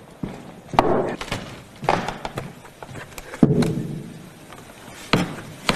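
Glasses and glass beer mugs set down on a tabletop: a handful of separate knocks and clunks spread across a few seconds.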